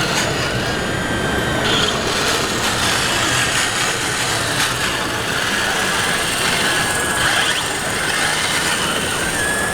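Steady mechanical din of large-scale RC construction machines working, with a short high whine from their electric drives or hydraulics about a second in and again near the end.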